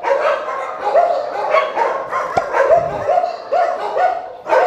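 Many shelter dogs barking at once, one of them barking steadily about twice a second above the rest.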